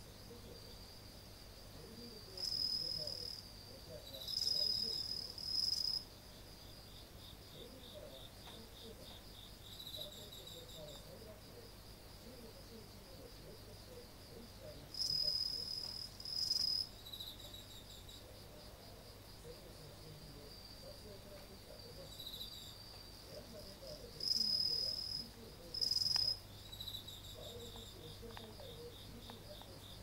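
Crickets singing in a night-time chorus: a steady, high, pulsing trill from several insects. A louder, closer one breaks in three times with a pair of short, bright trills.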